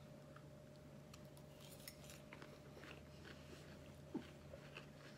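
Faint chewing of mouthfuls of raw cabbage coleslaw, with small scattered crunches. A low steady hum runs underneath.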